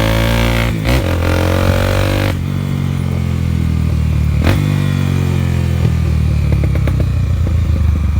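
Honda Twister motorcycle's single-cylinder engine on the move. It revs up with a brief break in the note about a second in, then the throttle closes at about two seconds and the engine runs down. Exhaust pops and crackles come on the overrun, one sharp pop near the middle and a string of small ones near the end.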